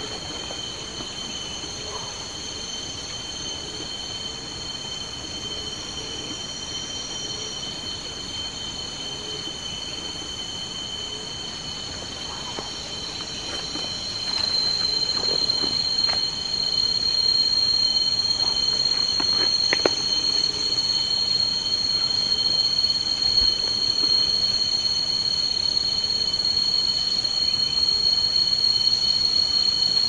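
Chorus of forest insects shrilling steadily at several high pitches at once. About halfway through, one of the pitches swells and the chorus becomes louder.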